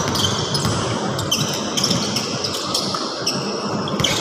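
Basketball game play: a ball bouncing on the court and sneakers squeaking in short, high bursts as players cut and drive to the basket.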